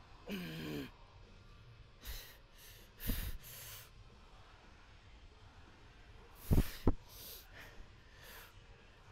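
A man breathing hard while recovering from a set of hack squats: a short falling groan near the start, then heavy exhales and breaths. Two sharp loud bursts about half a second apart come a little after six seconds, the loudest sounds here.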